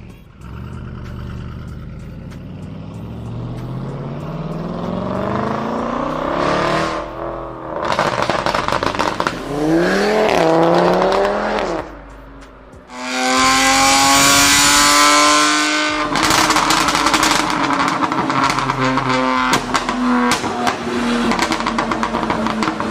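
Car engine revving through a loud aftermarket exhaust in several bursts: a slow climb in revs, a quick rise and fall, then a loud high-rev run. It settles to a steady note with rapid crackling pops from the exhaust near the end.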